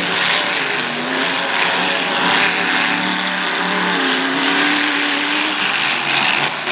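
Several demolition derby cars' engines revving hard together, their pitch rising and falling as the cars drive and push against each other in the dirt.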